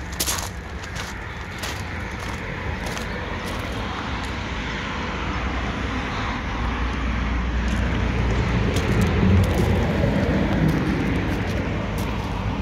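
Footsteps crunching on gravel, with short sharp crunches scattered through, over a steady low rumble that grows louder toward the end.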